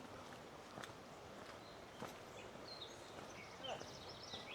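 Quiet outdoor ambience: a few faint, short bird chirps and small pitch glides from about three seconds in, with a couple of soft footstep-like clicks before them.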